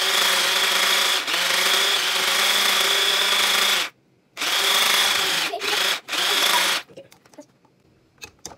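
Electric hand blender with a whisk attachment running, whipping butter in a plastic bowl. It cuts out briefly about four seconds in, runs again, then stops about seven seconds in, followed by a few faint clicks.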